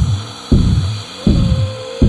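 Dark electronic horror score: deep booming pulses that drop in pitch, about one every three quarters of a second, over a faint sustained high drone.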